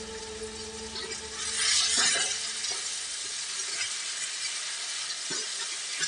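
Chicken sizzling in a pan as it is stirred, the sizzle swelling louder about two seconds in, with a few light knocks of the spoon near the end. A steady hum stops about two seconds in.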